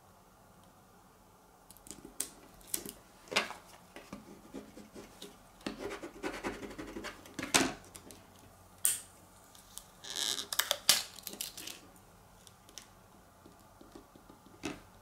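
Fingers and nails handling and rubbing down a vinyl decal on an acrylic keychain blank: scattered sharp clicks and taps with short scratchy rubs, and a longer rustle about ten seconds in.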